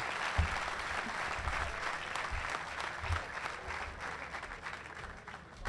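Crowd applauding, gradually dying away toward the end.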